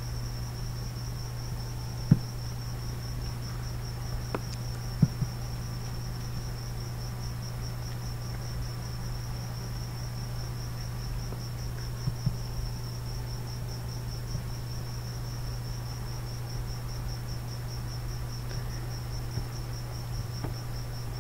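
A cricket chirping in a continuous, rapidly pulsing high trill over a steady low hum, with a few sharp clicks about 2, 5 and 12 seconds in.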